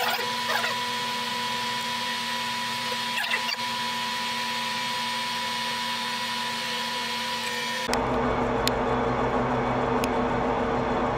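Large metal lathe turning an aluminium blank, a polished carbide insert for non-ferrous metals taking a cut with minimal feed and fair depth: a steady machine whine with a constant tone over a hiss. About eight seconds in the sound shifts abruptly to a fuller, lower running noise with a couple of sharp ticks.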